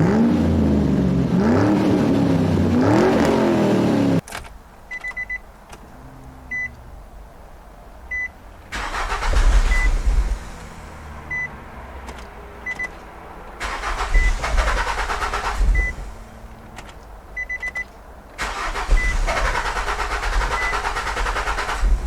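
2006 Nissan Altima engine cranked on the starter four times, each attempt a few seconds long, the first with the engine speed rising and falling as it tries to catch, but it never starts: a crank-no-start fault. Between attempts, a short high beep repeats about once a second.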